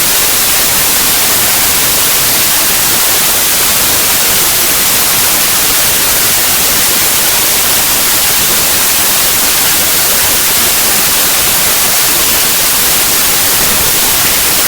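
Loud, steady hiss of static: the compressed bytes of a zip archive played back as raw 8-bit unsigned mono audio. Because compressed data is close to random, it comes out as even white noise with no tones or rhythm.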